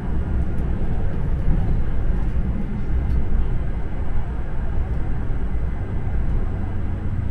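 Vario low-floor tram running along the track at speed, heard from inside the driver's cab: a steady low rumble of wheels on rails and the running gear, after accelerating toward 50 km/h.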